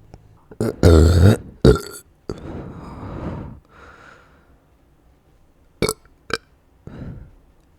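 A person burping: a loud, low-pitched burp about a second long starting just over half a second in, with a short second burp right after. Then come quieter breathy sounds, and two sharp clicks near six seconds.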